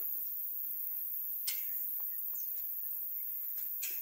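Rural outdoor ambience: a steady, high-pitched drone of insects, with a few faint clicks.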